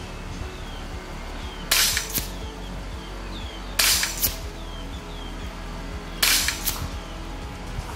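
Kalibrgun Springbok 5.5 mm semi-auto PCP air rifle, its regulator set at 50 bar, fired three times about two seconds apart. Each shot is a short sharp crack followed a split second later by a fainter second knock.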